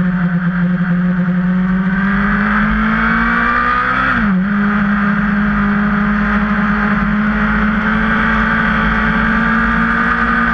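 Sport motorcycle's engine running hard under acceleration, with wind rush. The engine pitch climbs slowly and dips briefly about four seconds in.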